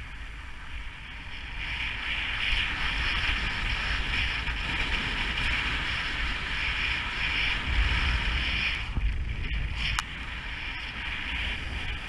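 Snowboard sliding over powder snow with a steady hiss, while wind buffets the microphone with a low rumble. The hiss eases about nine seconds in, and a single sharp click comes about a second later.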